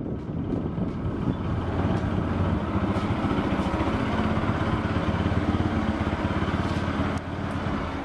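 Motorcycle engine running steadily at low speed, a dense even run of rapid firing pulses.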